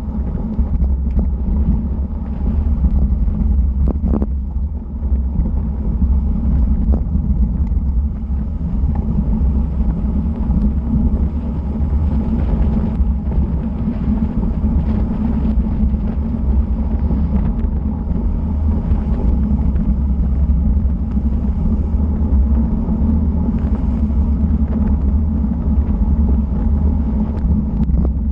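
Steady low rumble of wind buffeting an action camera's microphone and tyres on asphalt, on a road bike riding at about 50 km/h.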